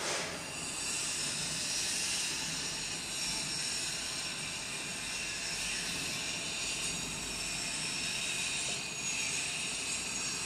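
Steady hiss with faint high-pitched whining tones running through it, like a small machine running.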